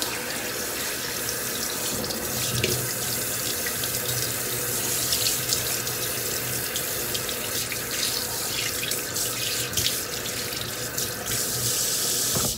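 Kitchen mixer tap running into a stainless steel sink, the stream splashing over a whole sea bream and hands as the inside of its belly is rinsed, with small irregular splashes and clicks over a steady rush of water.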